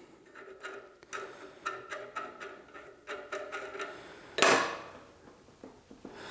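Metal parts knocking and clinking, each with a short ring, several times over a few seconds, then one louder knock, as a stuck band saw wheel is worked on its keyed shaft.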